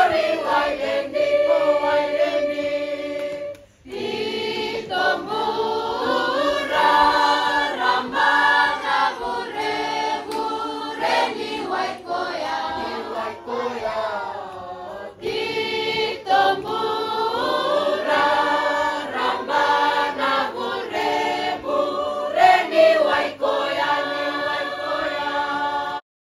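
Fijian choir of women, men and children singing together, with a brief break about four seconds in; the singing cuts off abruptly near the end.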